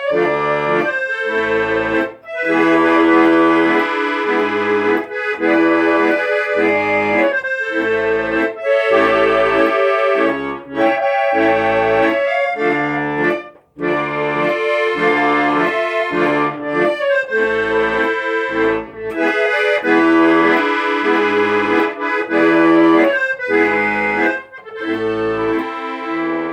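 Accordion music: a melody over a steady rhythm of bass notes and chords, with a brief break about halfway through.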